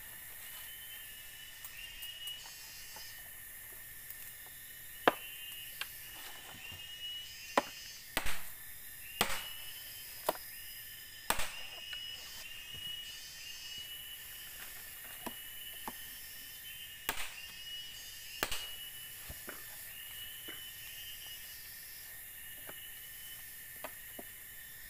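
Machete chopping into a green bamboo pole on the ground: sharp strikes at irregular intervals, several in quick succession a little before halfway and a pair later on, with steady high chirping in the background.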